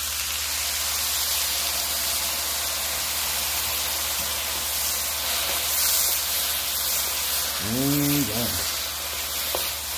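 Beef broth sizzling and hissing steadily as it hits rice frying in a hot pan, sending up steam.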